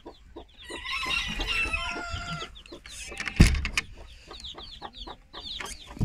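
Chickens crowing and clucking in the coop, followed by a run of quick high chirps. A single loud knock comes about three and a half seconds in.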